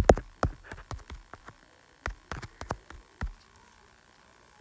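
Fingertip taps on an iPad's on-screen keyboard while a search is typed: a quick, uneven run of short clicks that stops a little over three seconds in.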